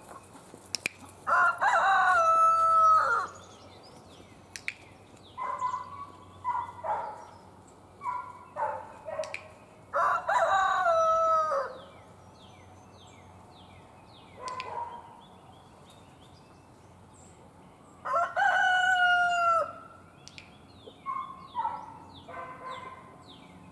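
A rooster crowing three times, each crow about two seconds long and roughly eight seconds apart, with shorter clucking calls from the chickens in between.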